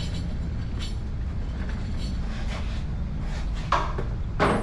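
Scattered knocks and clanks of metal parts being handled, the two loudest close together near the end, over a steady low rumble.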